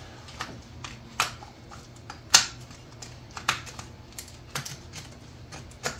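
Irregular light clicks and taps of unplugged fuel-injector connectors and the engine wiring harness being handled and pushed under the harness, with one sharper click a little over two seconds in.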